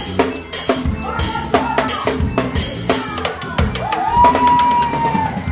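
Gospel band music with a busy drum kit: quick bass drum, snare and rimshot strokes over bass and other instruments. A note slides up and is held for over a second in the second half.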